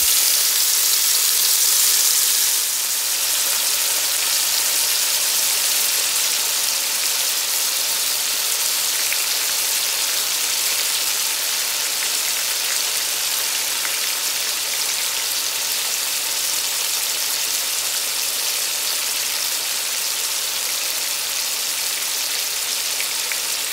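Seasoned chicken breasts searing in smoking-hot oil, sizzling steadily, a little louder for the first three seconds or so.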